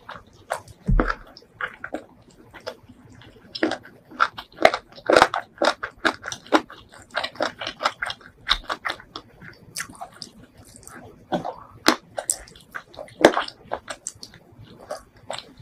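Close-miked eating sounds: a person chewing and biting chicken leg meat torn from the bone by hand, heard as many short, irregular mouth clicks and smacks.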